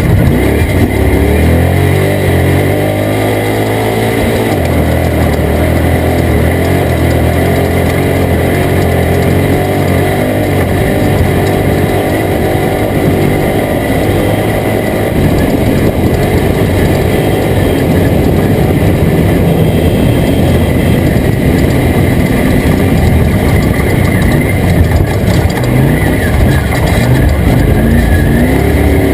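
Toyota Tacoma race truck's engine running hard under a continuous rush of noise, its pitch rising and falling as the revs change.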